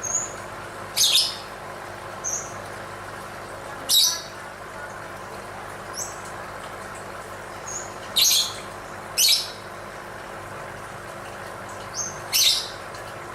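Lovebird calling: five short, harsh, high-pitched screeches a few seconds apart, with fainter brief chirps in between, over a steady background hiss.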